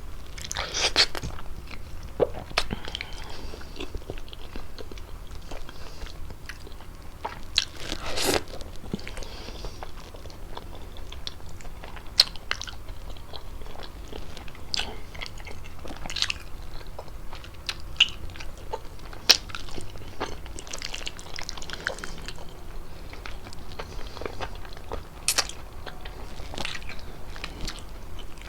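Close-miked chewing of creamy fettuccine with chicken: wet mouth clicks and smacks, with a few sharper bites, irregularly spaced.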